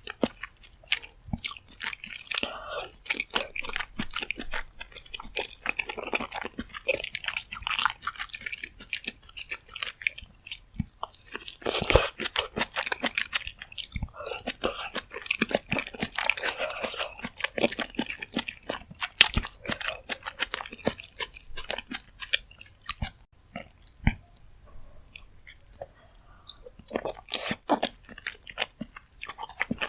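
Close-miked mukbang eating sounds from spicy rose jjimdak (braised chicken with flat glass noodles): wet chewing and mouth smacks with some crunchy bites, coming in repeated clusters.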